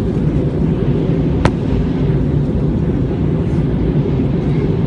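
Airbus A321 in flight, heard from the passenger cabin: a steady, heavy low rumble of engine and airflow noise. A single sharp click comes about a second and a half in.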